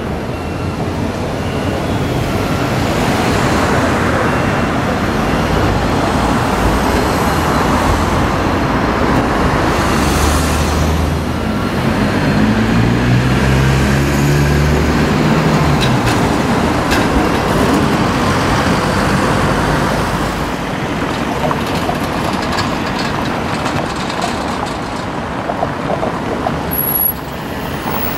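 City street traffic: a steady mix of passing cars and trams. About twelve seconds in, a vehicle engine speeds up with a rising pitch for a few seconds.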